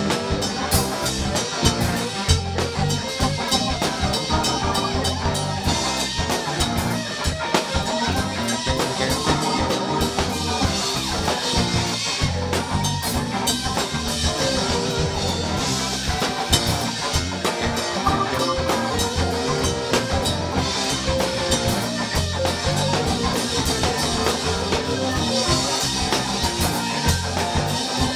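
Live rock band playing an instrumental passage without vocals: drum kit, bass guitar, electric guitars and keyboards together, with a steady beat.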